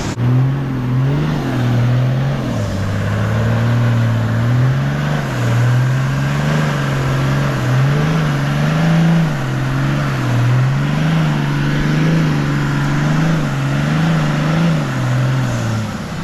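Four-wheel-drive engine revving hard, its pitch rising and falling again and again as the bogged vehicle strains in the sand; the revs drop away near the end.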